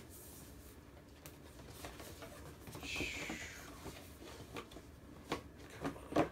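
Cardboard gift boxes being handled and packed together: a brief sliding scrape about three seconds in as the box slides into place, then a few light knocks and taps near the end.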